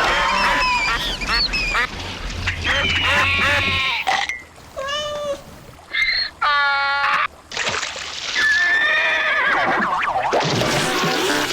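A sound-effects montage of animal calls: many short pitched cries that slide up and down in pitch and overlap. They thin out to a few separate calls with short gaps in the middle, then crowd together again.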